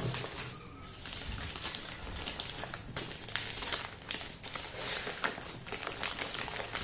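Plastic packaging crinkling and rustling as an item is handled and unwrapped, in a run of irregular crackles.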